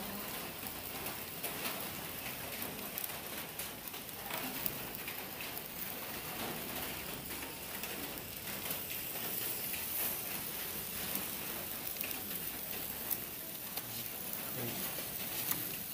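A hand-held sparkler burning: a steady fizzing hiss peppered with tiny crackles from the sparks.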